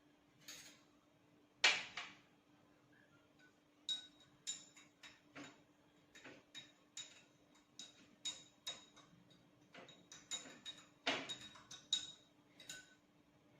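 A spoon clinking against a drinking glass while stirring, in a run of short ringing taps about two a second, with one louder knock a couple of seconds before.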